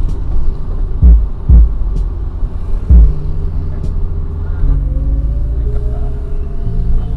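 Daihatsu Xenia car running on the road with a steady low rumble, its engine note changing in steps about halfway through and again near the end. Three heavy low thumps come in the first three seconds.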